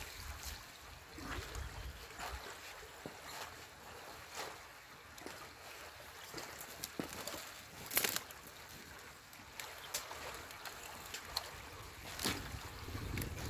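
Stream water trickling through a beaver dam as it is raked apart, with scattered small splashes and knocks of the rake in the sticks and mud; the sharpest splash comes about eight seconds in.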